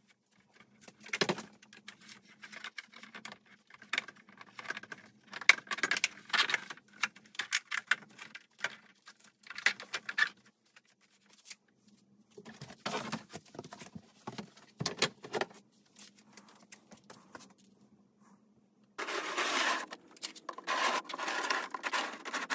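Hollow plastic knocks, clicks and scrapes as white PVC hydroponic channels are handled and fitted onto plastic shelving, with a faint steady hum underneath. A denser rustling noise takes over in the last few seconds.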